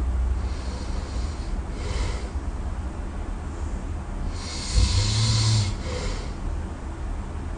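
A sleeping person snoring: a steady low rumble with hissy breaths, and the loudest, deepest snore about five seconds in.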